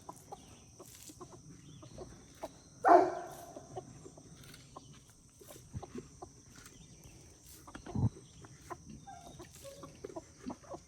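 Barred Rock hens clucking while they scratch for feed, with one louder call about three seconds in and scattered small clicks and pecks. A steady high-pitched buzz runs underneath.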